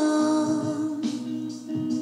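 Background music with a singing voice holding long notes.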